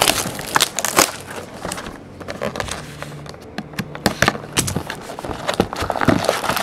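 Plastic shrink-wrap on a cardboard trading-card box crackling as it is slit with a box cutter and pulled open. Many irregular sharp clicks and taps come from handling the box.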